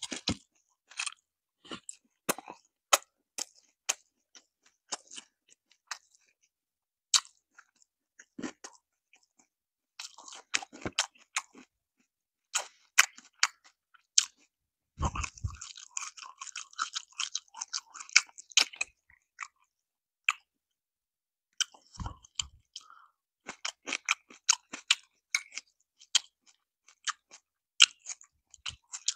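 A person chewing crispy Korean fried chicken: scattered sharp crunches, then two stretches of dense crackling chewing, one about halfway through and another a little later.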